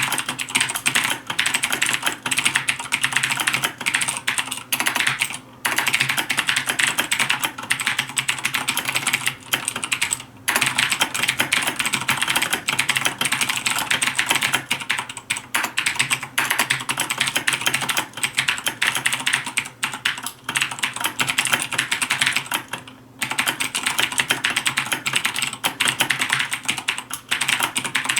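Fast typing on a Razer BlackWidow Ultimate 2013 mechanical keyboard with clicky Cherry MX Blue switches: a dense, continuous clatter of keystrokes, broken by a few short pauses.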